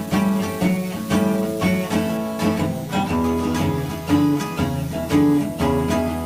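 Background music: acoustic guitar playing a plucked and strummed melody.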